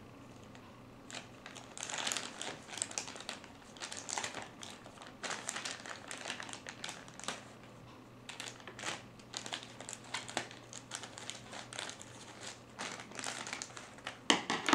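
Crinkling of a thin plastic toy bag being handled and cut open with scissors, starting about a second in and going on in irregular bursts.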